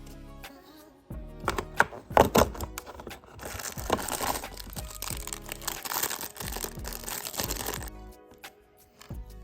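Packaging crinkling and tearing for about seven seconds, starting with a few sharp cracks and then a dense, steady crinkle, over soft background music.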